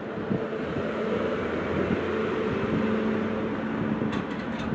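Steady rush of sandstorm wind and street traffic with a low, even hum, and a few sharp clicks near the end.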